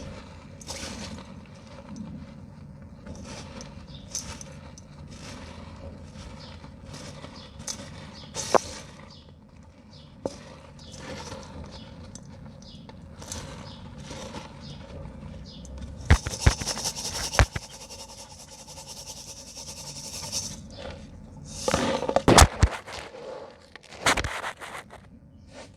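Dry pure cement being crumbled and crushed by hand: continual gritty scraping and crunching, broken by sharp cracks as harder pieces snap. The cracks come in two loud clusters, one a little past halfway and one near the end.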